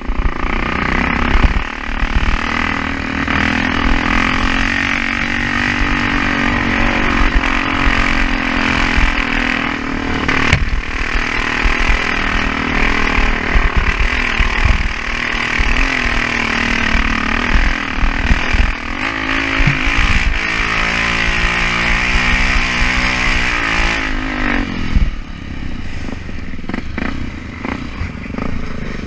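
Off-road motorcycle engine running as it is ridden, the revs rising and falling, most clearly in a run of revving about twenty seconds in.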